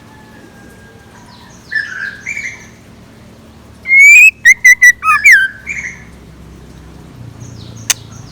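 Decoy scarlet minivet calling: a few soft calls, then a loud run of short, sharp, repeated notes about four seconds in, followed by fainter calls. A single sharp click near the end.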